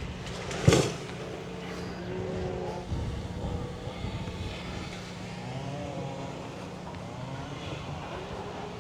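A steady engine hum, with one sharp loud knock a little under a second in.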